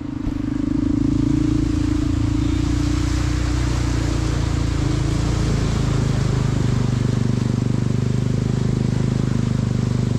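Honda CRF150L's single-cylinder four-stroke engine running steadily on the road, under wind and road noise, its note changing about halfway through.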